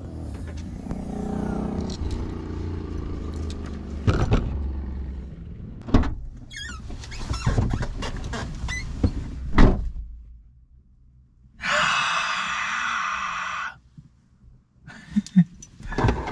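A person climbing into a small car through the driver's door: rustling and several thunks, the loudest about ten seconds in. The cabin then goes quiet, and a steady buzzing follows for about two seconds.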